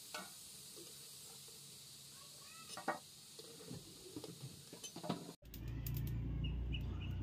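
Metal spatula clinking and scraping against an aluminium karahi and a steel plate as fried jackfruit koftas are lifted out of the hot oil, over a faint sizzle of frying. About five seconds in the sound cuts to a louder steady low hum with short high chirps.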